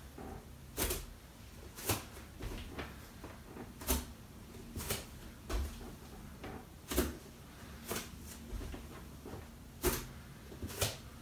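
Bare feet landing on an exercise mat during forward lunges: a short knock about once a second, uneven in spacing and strength, over a faint low hum.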